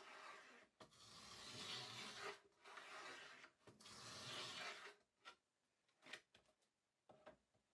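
Plough plane cutting a groove along the edge of a softwood board: four short strokes of the iron shaving the wood, each about a second long, then a few light knocks as the plane is lifted off.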